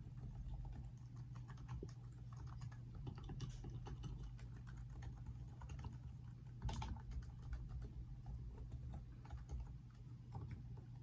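Keys of a Topre Realforce electrostatic capacitive keyboard being pressed in quick, irregular strokes, soft and faint, with one louder keystroke about seven seconds in.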